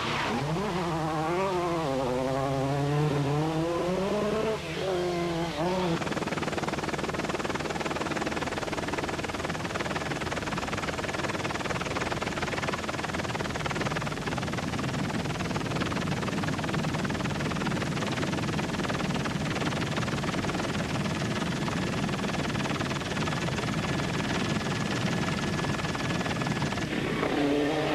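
Rally car engine revving hard, its pitch rising and falling over and over through the gears for about the first six seconds. After that a dense steady rushing noise with no engine note runs on.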